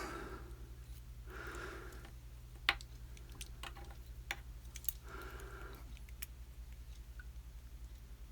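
Scattered small, sharp metal clicks and soft handling noise as pin-tumbler pins and springs are picked out of a padlock's core while it is being taken apart.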